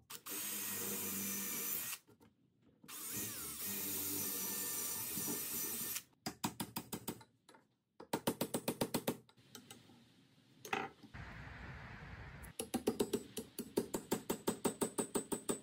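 Bursts of quick hammer blows on a steel punch, several a second, driving an old wooden handle out of an axe head held in a vise; the old handle sits tight in the eye. Between the bursts come stretches of steady noise.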